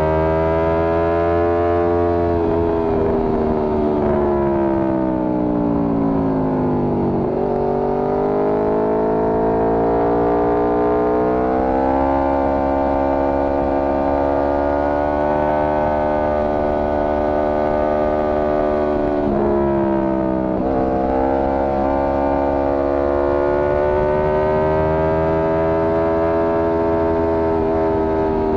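Motorcycle engine under way, its pitch falling for the first several seconds as the bike slows, then rising steadily as it accelerates. About two-thirds of the way through, the pitch drops suddenly at a gear change and climbs again, with wind rush underneath.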